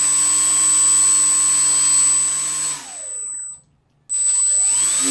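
The 400-watt electric motor of an RC Predator model plane, on a 50-amp ESC, spinning its rear pusher propeller at about a third throttle with a steady whine. It winds down to a stop a little past three seconds in. About a second later it is throttled up again, its whine rising in pitch near the end.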